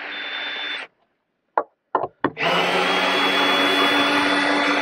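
Ryobi cordless driver sinking screws into a timber batten. A short run stops under a second in, a few quick trigger blips follow, then a long steady run with a high motor whine starts about two and a half seconds in.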